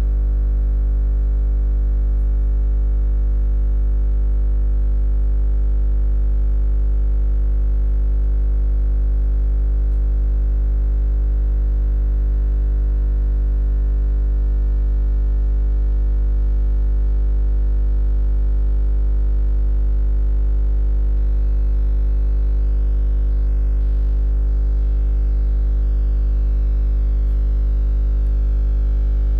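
A loud, unchanging low electronic drone with many steady overtones, the deepest one strongest.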